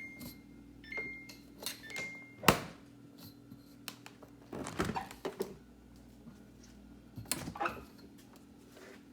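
Refrigerator door-open alarm beeping: short high beeps about once a second. A sharp thud about two and a half seconds in, as a door shuts, ends the beeping. After that come a few knocks and clatter of jars and containers being handled, over a steady low hum.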